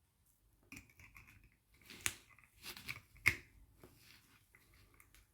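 Small clicks and scrapes of an antique pocket watch movement and its case being handled while the movement is fitted back into the case. Two sharp clicks stand out, at about two seconds and, loudest, a little after three seconds.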